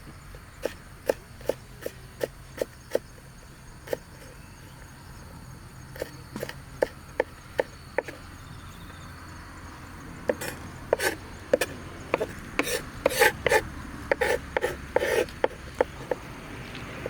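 A series of sharp knocks on wood, a few each second at first, then coming faster and louder about ten seconds in.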